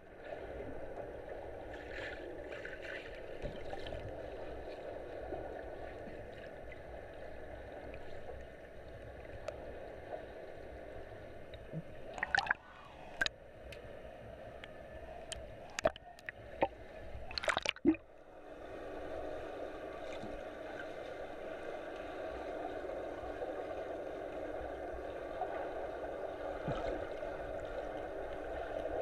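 Muffled underwater rush of pool water heard through a camera's waterproof housing, with a few sharp clicks and knocks past the middle.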